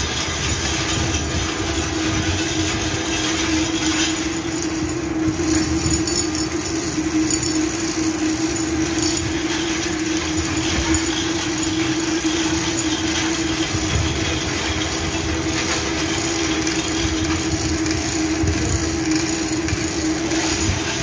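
Steady loud drone of ship's engine-room machinery: a constant hum over a wash of mechanical noise.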